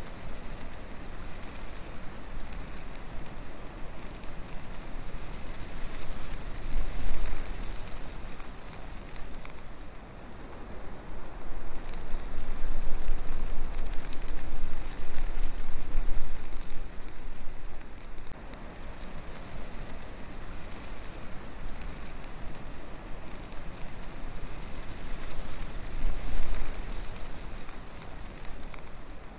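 Steady rushing noise on the microphone of a camera carried by a flying quadcopter, from wind and rotor wash, with low rumbling gusts that swell several times.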